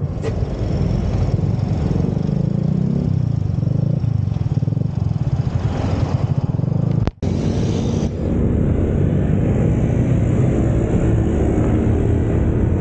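Yamaha Mio automatic scooter's engine idling while stopped, then, after a brief dropout about seven seconds in, running steadily under way.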